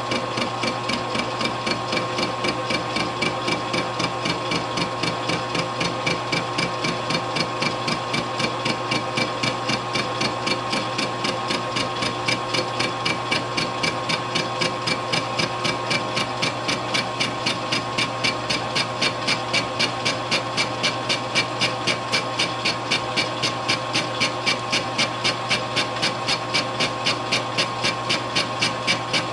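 Metal lathe taking an interrupted cut on a spinning rectangular metal bar with a worn carbide cutter: a sharp tap each time a corner of the bar strikes the tool, in an even rhythm several times a second, over the steady hum and whine of the lathe's motor and gearing.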